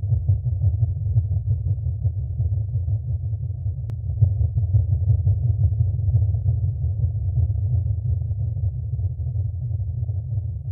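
Deep, steady low rumble: a droning sound effect with no melody, its energy sitting mostly in the bass.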